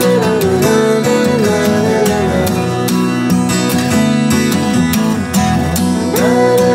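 Background music: a strummed guitar with a melody line over it.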